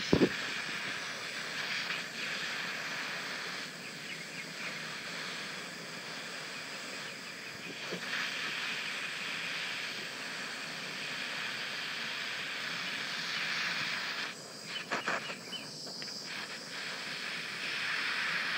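Handheld gas torch flame hissing steadily. The hiss drops out briefly about fourteen seconds in, followed by a few clicks.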